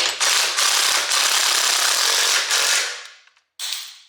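A loud, continuous rasping mechanical noise from hand work on the rear differential hardware, lasting about three seconds and stopping abruptly, then two short scrapes.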